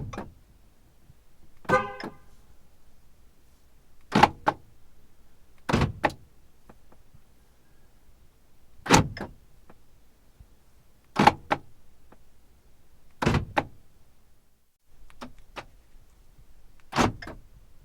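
Car central locking clunking shut again and again, each a short sharp double click, about every two seconds. About two seconds in, one lock comes with a brief pitched chirp, like a horn beep from a remote lock.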